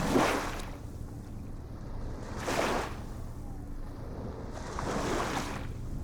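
Ocean waves washing in over a steady low rumble of surf, with three surges about two and a half seconds apart.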